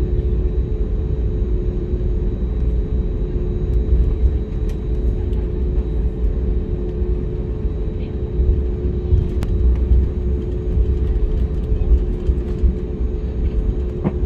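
Cabin noise inside an Airbus A320neo taxiing: a steady low rumble with a constant engine hum from the engines at taxi power.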